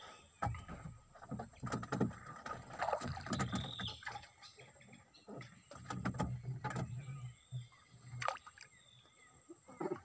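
Irregular knocks, clacks and thumps on a small wooden fishing boat as the men shift about and handle their lines and gear on the deck.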